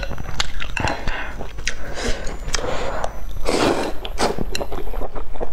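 A person slurping thin noodles and chewing wetly, with many small mouth clicks, picked up close by a clip-on microphone; the longest, loudest slurp comes about three and a half seconds in.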